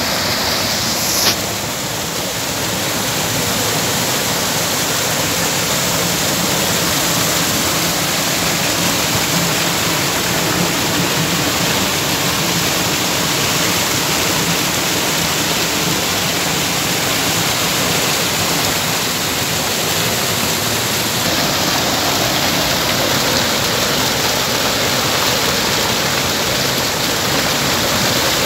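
Steady rush of fast-flowing water, with a single short knock about a second in.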